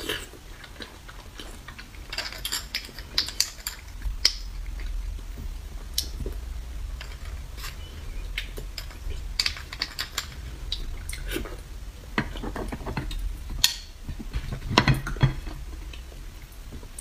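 Metal spoon clicking and scraping against roasted beef marrow bones as marrow is scooped out, with close-miked eating sounds in between. The clicks come in irregular clusters, the sharpest near the end.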